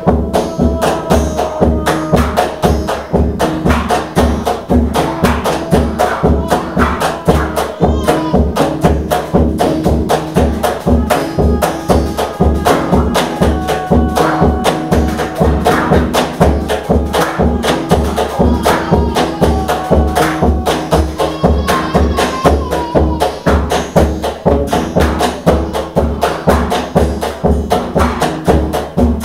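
Live percussion ensemble playing a steady, fast rhythm: deep drum strikes under tambourine-like jingles and wood-block clicks, with a few held pitched notes above it.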